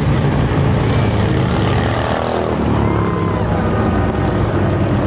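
Many motorcycle engines running loud and low as a stream of bikes rides past.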